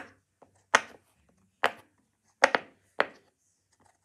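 Silicone pop-it fidget toy having its bubbles pressed: a string of sharp single pops, about five of them, spaced unevenly up to a second apart.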